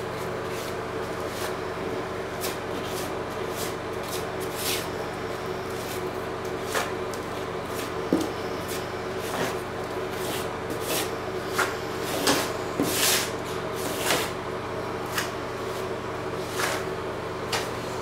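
Irregular short scraping and swishing strokes as a tool spreads liquid waterproofing membrane over fiberglass mesh tape in a shower corner, a few louder strokes past the middle, over a steady low hum.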